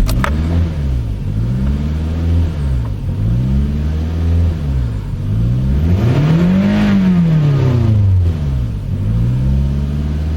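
2005 Toyota Camry engine idling with a surging idle: the revs rise and fall about every second and a half, with one bigger rise near the middle. The hunting idle comes after a throttle body cleaning and battery reset, and the owner thinks the engine no longer knows where the throttle position sensor is.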